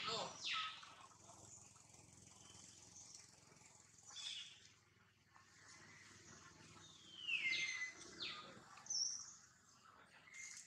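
Several short, high-pitched animal calls, each sliding quickly down in pitch, over a faint background of insects. Two calls come right at the start, one about four seconds in, and a cluster comes near the end.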